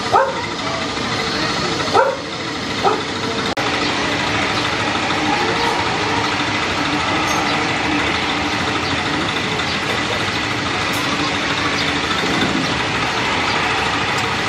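A dog barks a few times, then steady jet aircraft engine noise sets in about three and a half seconds in and holds at an even level.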